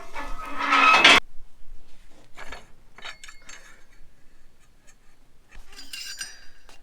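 A loud noise that cuts off suddenly about a second in. Then scattered light metallic clinks and rattles in two short clusters, from hand work checking the oil and coolant on a combine harvester's engine.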